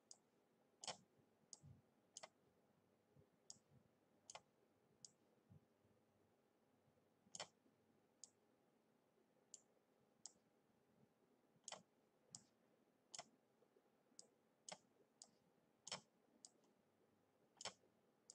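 Faint computer mouse clicks, about two dozen, coming unevenly and some in quick pairs, as items are dragged and dropped on screen.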